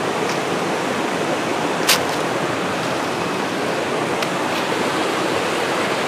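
River water rushing steadily over rocks and a small cascade. A single sharp click about two seconds in.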